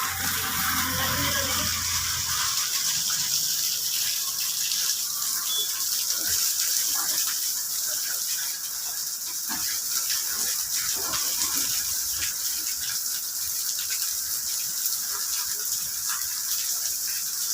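Steady gushing of water, a continuous hiss with scattered small splashes. A low hum sounds under it for the first two seconds.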